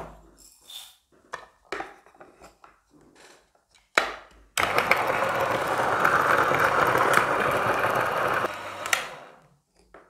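Niche Zero conical-burr coffee grinder grinding a dose of beans at setting 20 for about four seconds, then winding down. Before it come a few light clicks and knocks from the dosing cup being handled, and a sharp click just before the motor starts.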